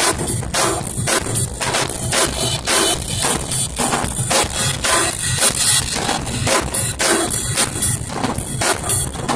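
Drum kit played in a fast, busy groove: kick drum, snare and cymbals struck several times a second under a constant wash of cymbals.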